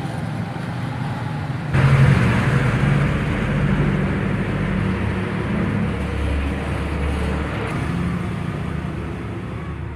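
Steady low engine rumble with hiss, jumping louder about two seconds in and then slowly easing off.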